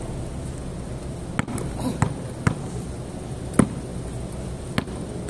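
Basketball bouncing on a concrete court: about five sharp, irregularly spaced bounces, the loudest about three and a half seconds in, over a steady low background rumble.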